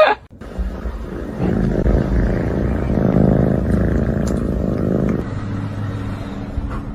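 A cat making a loud, low, rumbling sound that starts about a second and a half in and lasts about four seconds.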